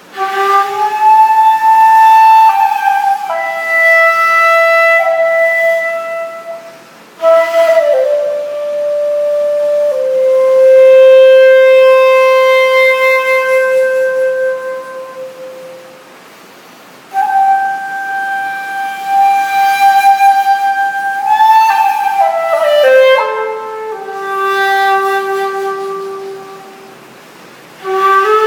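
Tang shakuhachi, a Taiwanese-made end-blown bamboo flute, playing a slow solo melody in long held notes with a breathy tone. Pitch slides and bends link the notes, and the phrases break off for breaths every eight to ten seconds.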